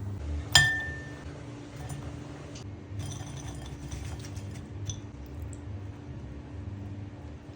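A single sharp clink of tableware about half a second in, ringing briefly with a clear tone, followed by a few light clicks and taps over a steady low hum.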